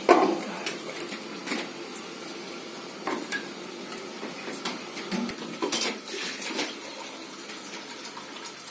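Cookware clattering on a gas stove: a glass pot lid and saucepans being handled, with one loud ringing clang at the start and then several lighter knocks and clinks.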